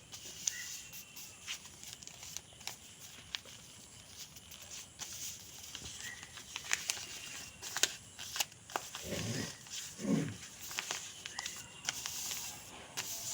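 A sheet of origami paper being folded and creased by hand: faint rustling with scattered sharp clicks and taps, and two short low sounds about nine and ten seconds in.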